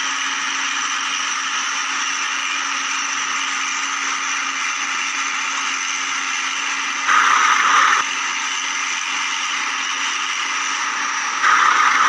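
Small electric motor of a toy backhoe running with a steady whine, with two brief louder bursts of rasping noise, about seven seconds in and again near the end.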